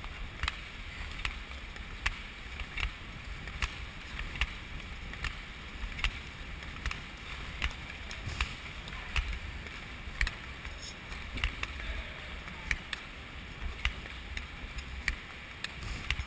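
Speed-skate blades stroking on ice in a steady skating rhythm, a sharp scrape about every three-quarters of a second, over a low steady rumble.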